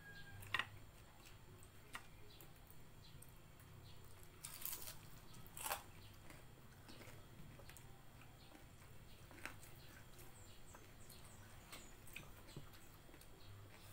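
Faint sounds of eating by hand: quiet chewing and small clicks of fingers picking at rice and fried fish on plates, with a couple of louder clicks about five seconds in.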